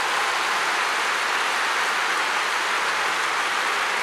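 Large stadium crowd applauding, a dense, steady clatter of clapping.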